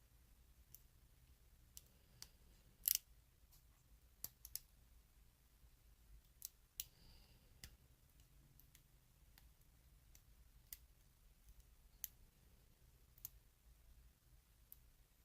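Lock pick and tension wrench working the spool pins of a Burg Wachter padlock: faint, irregular metal clicks, the sharpest about three seconds in.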